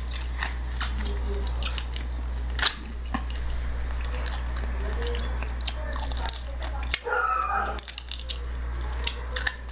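Close-miked eating: biting and chewing meat off a chicken wing, with wet smacks and sharp clicks of mouth and teeth. A steady low hum runs underneath.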